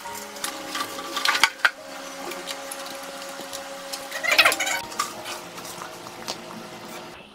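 Clinks and rattles of hands handling a treadmill's metal motor cover and wiring connectors, loudest about a second in and again a little past four seconds.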